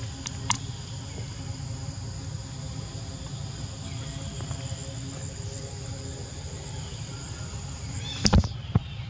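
Steady high-pitched chorus of insects buzzing over a low rumble, with a couple of faint clicks near the start and a loud knock about eight seconds in.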